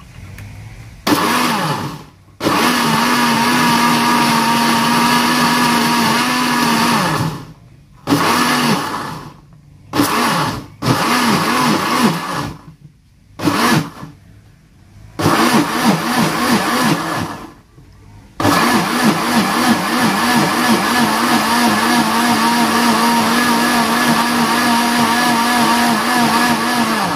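Electric countertop blender chopping a jar of leaves and water. It is pulsed on and off several times, each start a rising whine as the motor spins up. Near the end it runs without stopping for about nine seconds, a steady motor hum, as the leaves break down into a green purée.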